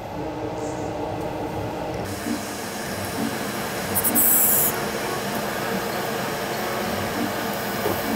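Steady hiss over the stove, with a few soft splashes as eggplant slices are dropped one by one into the pot of water. A brief sharper hiss comes about four seconds in.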